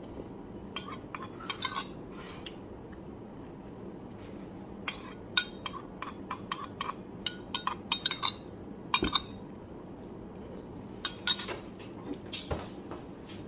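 Metal spoon clinking against a ceramic bowl while eating: scattered clusters of light, sharp clinks.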